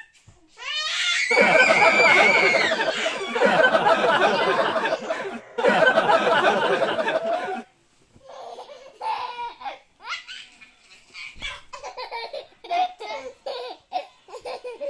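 Child's hearty belly laughter in three long, loud bouts during the first half, followed by softer, breathy giggles in short bursts.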